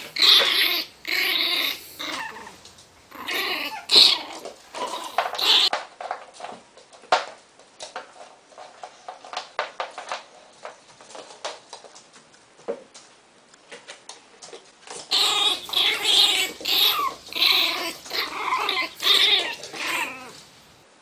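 Miniature pinscher snarling and growling in angry bursts, the warning of a dog guarding its box. The snarls die down to faint clicks for several seconds in the middle, then start up again for a run of about five seconds.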